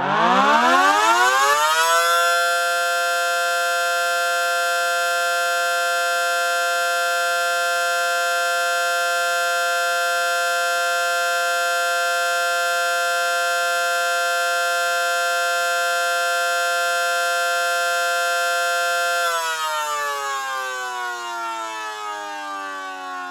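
FCM mechanical siren sounding its steady alert signal, set off by FSK radio activation. It winds up in pitch over about two seconds, holds one steady tone, then winds down with falling pitch from about nineteen seconds in.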